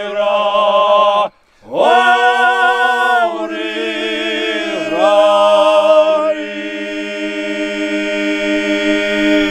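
Men's vocal group singing an old Adyghe (Circassian) Nart song a cappella: a short phrase, a breath, a rising phrase, then a long held closing chord over a low drone.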